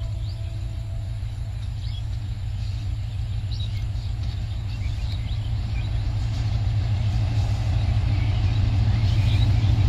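Diesel locomotive of an approaching passenger train: a steady low engine rumble that grows gradually louder as the train nears.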